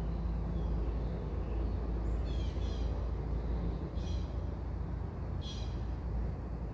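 Outdoor ambience: a steady low rumble, with three short bursts of bird chirps about two, four and five and a half seconds in.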